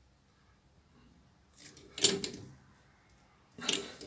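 A hex key turning in a grub screw on a lathe chuck's adjustable jaw as the screw is tightened. A faint tick is followed by two short clacks, one about two seconds in and one near the end.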